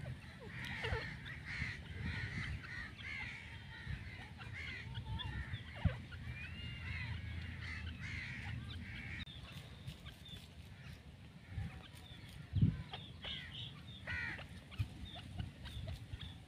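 Grey francolins calling, a run of short repeated chirping notes, dense for the first half and sparser later, over a low rumble. A dull thump comes about twelve seconds in.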